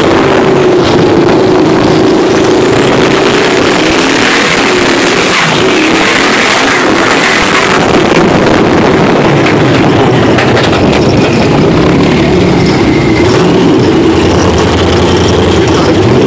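Twin-turbo V8 of a built sand-dune truck running hard, heard from inside the cab. A steady engine drone sits under a loud rushing noise.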